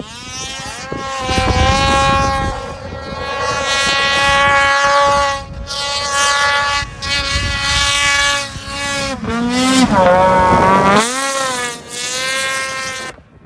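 Ski-Doo Summit 850 snowmobile's two-stroke twin engine running hard at high revs. Its pitch wavers with the throttle and drops sharply about nine seconds in before climbing back up. The sound starts and stops abruptly.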